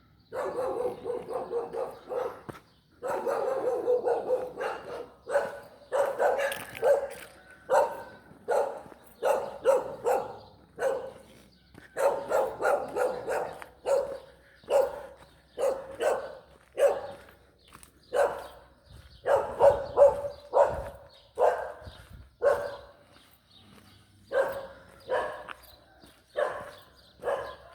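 A dog barking over and over, about one bark a second, with longer drawn-out calls in the first few seconds.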